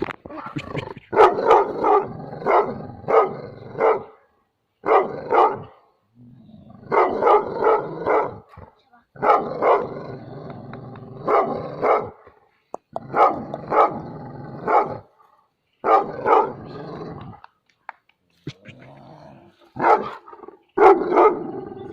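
A dog barking in repeated bouts of several barks each, with short pauses between bouts and low growling running under some of them.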